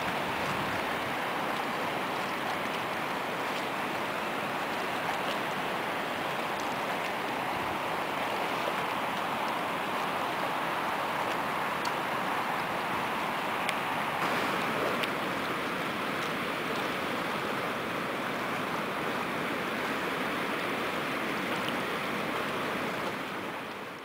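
Steady rush of water with a few faint small ticks, fading out near the end.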